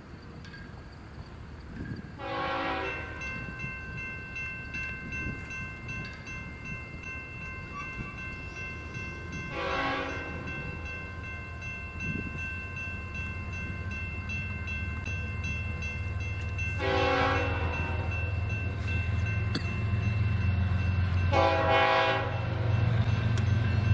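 Approaching diesel freight locomotives' air horn sounding a chord, swelling into four louder blasts, over the low rumble of the engines, which grows steadily louder as the train nears.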